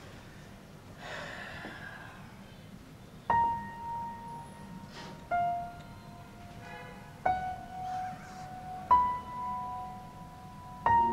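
Quiet film score: slow, single piano notes, five of them about two seconds apart, each left to ring out.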